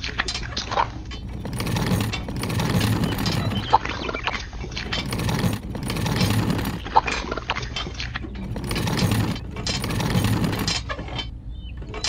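Wet concrete slopping and sliding out of a small plastic toy wheelbarrow in several pours, each a short swell of wet, low noise, with light plastic clicks and knocks between them.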